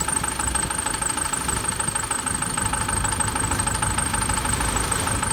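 A vehicle engine idling steadily: a low rumble with steady high tones over it.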